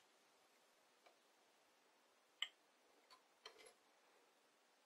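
Near silence with a few faint, short clicks, the sharpest about two and a half seconds in: digital calipers being seated and moved along a turned metal bar, checking it for taper.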